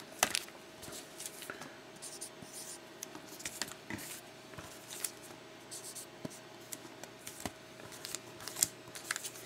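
Felt-tip marker scratching and squeaking in short strokes as numbers are written on the foil wrappers of trading card packs. Scattered light taps and rustles come from the packs being handled and set down.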